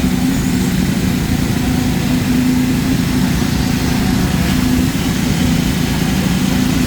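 Heavy diesel engine of construction machinery running steadily at a constant speed, with an even low hum.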